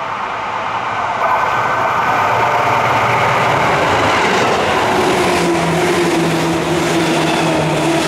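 Seibu 2000-series electric commuter train coming up to a level crossing and running past. Its noise grows loud about a second in, then holds as a steady rush of wheels on rail with a low hum while the cars go by.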